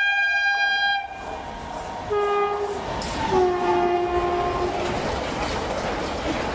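Indian Railways electric locomotive's horn sounding three times as a container freight train passes: a long blast first, a short one about two seconds in, and a lower third one about three seconds in whose pitch falls. From then on the rumble and wheel clatter of the container wagons rolling past fills in.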